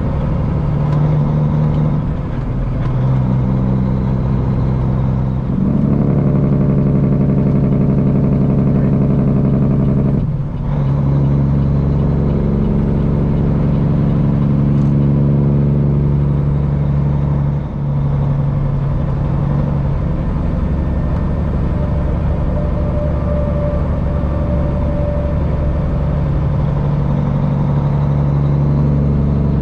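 Straight-piped Cummins diesel engine of a Peterbilt semi running steadily at road speed with a deep, even exhaust note. Brief dips in sound come about ten seconds in and again near eighteen seconds.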